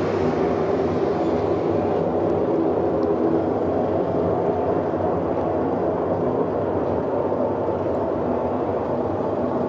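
A loud, steady, low droning rumble with several held tones layered together, from an unidentified source.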